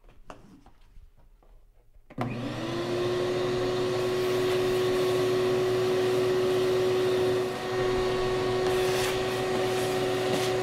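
Wet/dry shop vacuum switched on about two seconds in, its motor whine rising quickly and then running at a steady pitch while the hose sucks up sawdust from the floor. The level dips briefly once near the middle.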